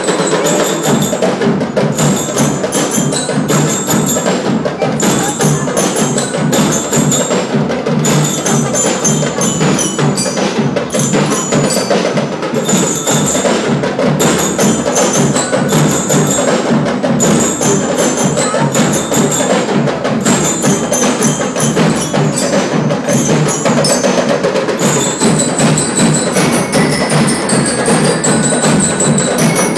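Drum and lyre band playing: drums beating a steady, rapid rhythm while bell lyres ring out the melody.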